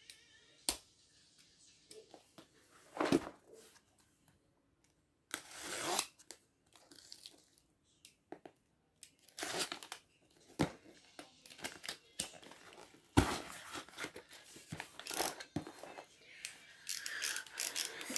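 Cardboard shipping box being handled and its tape slit and torn open with a box cutter: a series of irregular scraping and tearing noises, a few seconds apart.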